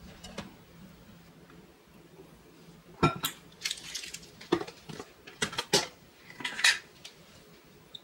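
Kitchenware clinking on a stone countertop: a stainless steel tumbler and ceramic bowls set down and handled. About a dozen sharp clinks and knocks start about three seconds in, the loudest at the start and near the end.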